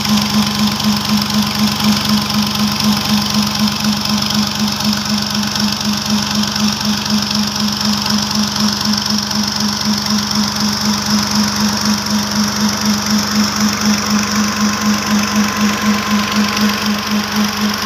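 New Holland 480 Special tractor's diesel engine running steadily at a fixed speed while it drives a water pump through its PTO shaft, with an even pulsing beat of about three throbs a second.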